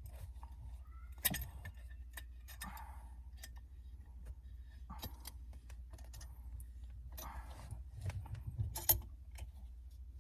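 Scattered metallic clicks and clinks of tools and hardware being handled while working the shift knob off a car's shifter, the sharpest about a second in and a flurry near the end, over a faint steady hum.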